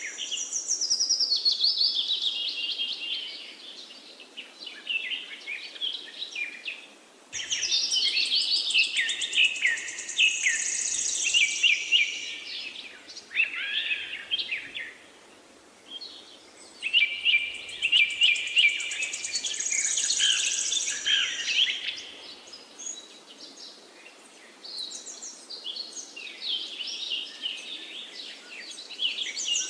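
Birdsong: several birds chirping and singing over one another, the chorus changing abruptly about seven and again about seventeen seconds in.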